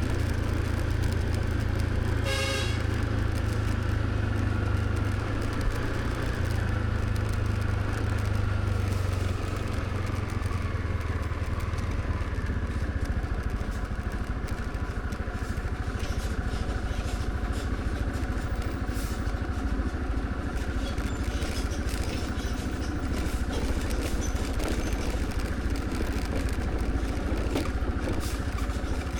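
Motor scooter riding along the road: steady engine note with road and wind rumble. A brief horn toot sounds about two seconds in.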